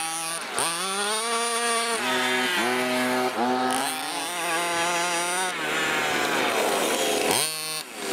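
Two-stroke petrol engine of a 1/5-scale HPI Baja RC buggy revving hard, its pitch climbing and dropping again and again as the throttle is worked, with a long climb in the middle and a sharp rev near the end. A thin high whine runs over it.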